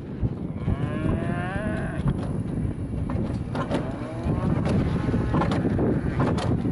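Alpine coaster sled rolling down its track, a steady rumble with wind buffeting the microphone and scattered clacks. A long wavering call sounds about a second in, and a fainter one around four to five seconds in.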